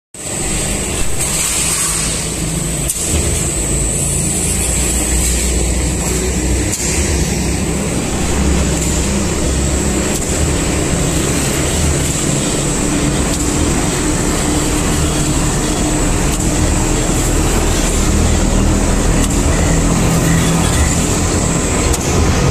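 Light-gauge steel keel roll forming machine running: the drive motor and forming rollers make a steady mechanical drone with a thin high whine over it as the steel strip feeds through. A couple of short clicks stand out in the first few seconds.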